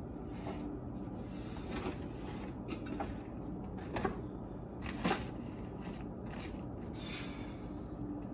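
Cans and packages being shifted around on pantry shelves: scattered knocks and rustles over a steady low hum, with a sigh near the end.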